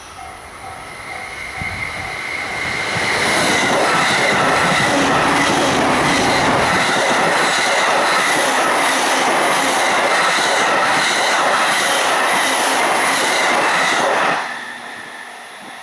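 Electric train on the JR Joban Line passing a level crossing at high speed, around 120 km/h. Its wheels and rails build to a loud steady rush over the first three seconds, with regular clatter over the rail joints, and the noise cuts off sharply about fourteen seconds in. A level-crossing bell rings at the start and again after the train has gone.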